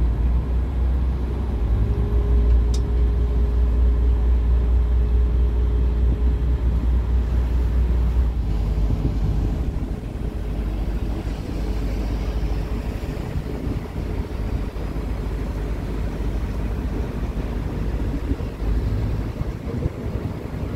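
Lake Como passenger ferry's engines droning low and steady under a rushing of wind and water. A thin steady whine runs alongside for the first several seconds, while the drone is at its heaviest, then the drone eases off.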